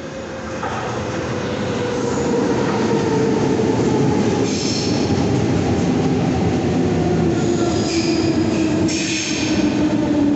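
Berlin S-Bahn class 485 electric train pulling into the platform, growing louder over the first two seconds. Its low running tone falls slowly in pitch as it slows, and brief high wheel squeals come in several times.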